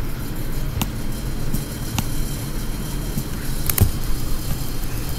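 Steady low rumble with a few sharp clicks and knocks, about three, spread through, from a recording device being handled and set in place.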